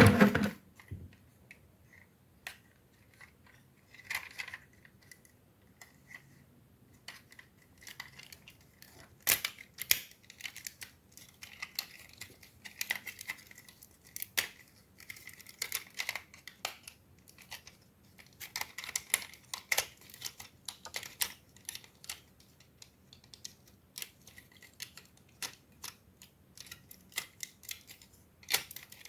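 Plastic toy robot parts clicking and snapping as the toy is handled and transformed: irregular sharp clicks and short rattles with quiet gaps between them. A short loud noise ends just after the start.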